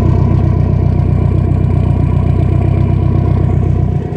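BMW E30 318is's M42 1.8-litre four-cylinder engine idling steadily, heard at the tailpipe. The exhaust runs from the downpipe straight back to a turbo muffler with nothing in between, which makes it a bit loud.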